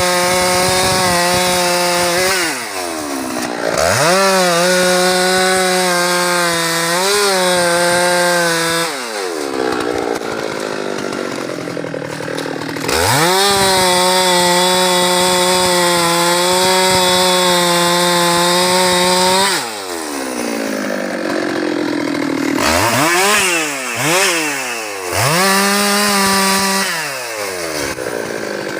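Husqvarna 390XP two-stroke chainsaw running at high revs while cutting a teak trunk. The throttle drops and picks up again several times, with a longer spell of lower, rougher revving in the middle.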